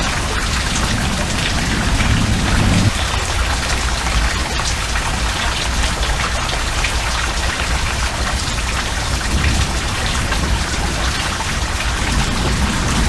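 Heavy thunderstorm rain falling steadily, a dense patter of drops on the ground and on surfaces. A low rumble underlies the first three seconds and stops suddenly.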